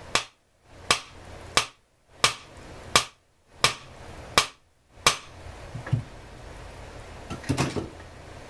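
Hammer tapping on metal parts of a chainsaw during teardown: eight sharp strikes at an even pace, about two-thirds of a second apart, then a couple of lighter knocks and a short clatter of parts being handled.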